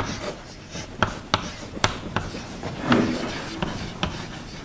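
Chalk writing on a blackboard: sharp taps as the chalk strikes the board, with scratching strokes between them as Malayalam letters are formed.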